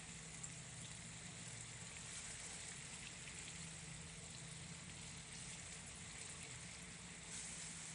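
Chicken pieces frying in hot oil in a pot, a steady sizzle with small crackles.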